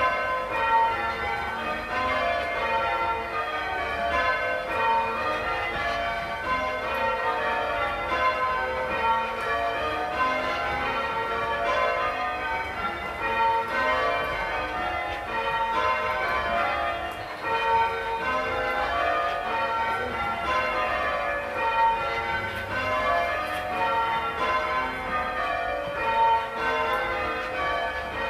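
English church tower bells rung full-circle in change ringing: a steady, even succession of strokes whose order shifts from one row to the next, as the ringers work through a doubles method.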